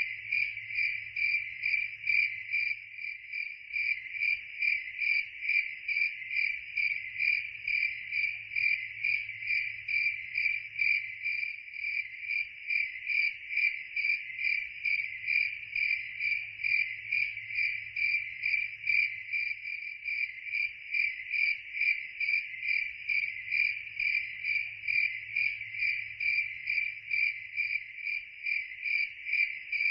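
Crickets chirping in an even, unbroken rhythm, about two chirps a second.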